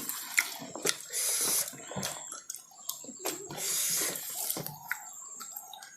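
Close-miked eating mouth sounds: wet chewing and smacking with sharp clicks, and two longer slurps, about a second in and around four seconds in.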